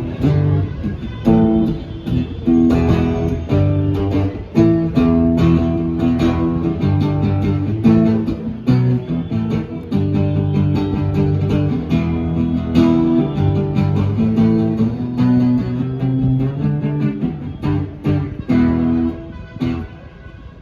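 Amplified guitar playing an instrumental passage of chords and picked notes during a sound check.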